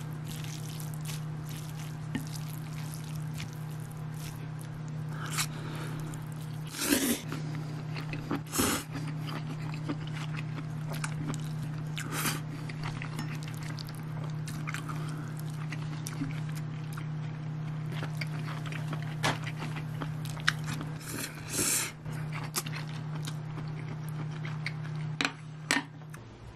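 A person eating stir-fried konjac noodles with chopsticks: a few short slurps and chewing noises, with small clicks between, over a steady low hum.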